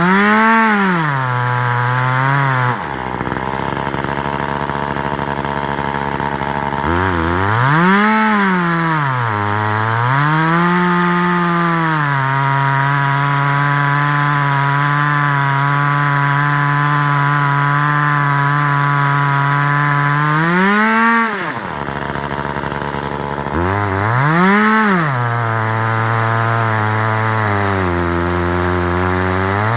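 Two-stroke chainsaw on a chainsaw mill, running hard. Its engine revs up and falls back several times and holds a steady, lower speed for long stretches in between. Twice, near the start and about two-thirds of the way in, the engine tone gives way briefly to a rushing noise.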